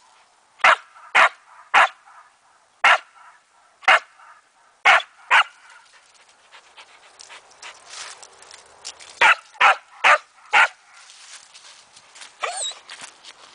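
A Samoyed barking in sharp single barks, about one every half-second to a second, then a lull of a few seconds before a quick run of four more. It is barking up into a tree at a cat it has chased.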